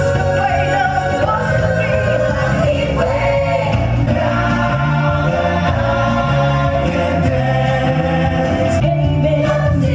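Motown-style stage-show song: singing over a band, with a bass line moving steadily from note to note.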